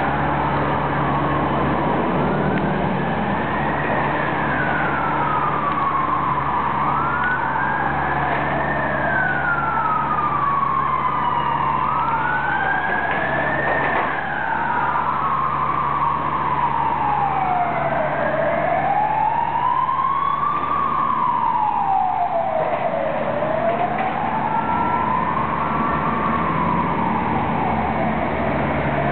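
Emergency vehicle siren wailing, its pitch slowly rising and falling about every five seconds, at times overlapping a second wail. A steady low engine hum runs beneath it.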